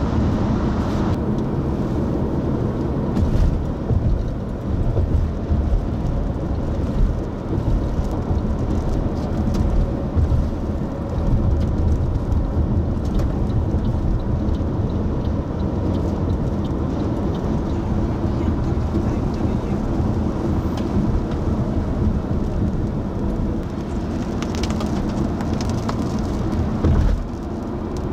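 Steady low rumble and hiss of a car driving, heard from inside the cabin, with a few scattered clicks and a sudden drop in level near the end.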